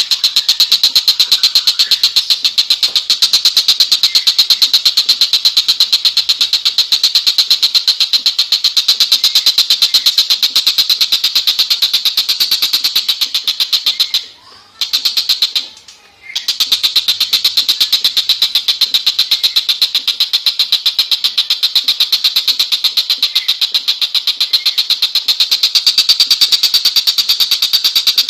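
Tengkek buto singing a loud, fast rattling trill of rapid repeated high notes, with two short breaks about halfway through.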